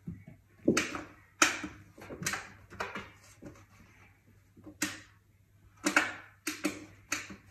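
Irregular sharp knocks and taps on wooden stair treads, about nine of them, as a cat bats at and drops a small toy on the steps.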